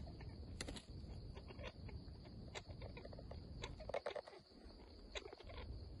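Parrots making faint, scattered clicks and short chirps, with one louder brief call about four seconds in, over a low steady rumble.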